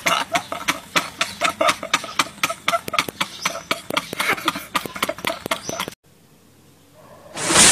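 Men laughing hard in quick, repeated ha-ha bursts, a laughing-meme sound clip. The laughter cuts off abruptly about six seconds in, and a loud noisy boom swells up near the end.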